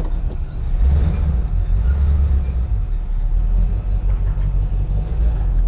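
Late-1940s DeSoto sedan's engine running with a deep, steady rumble just after a hard start. It swells for a second or two about a second in as the car creeps forward, then settles.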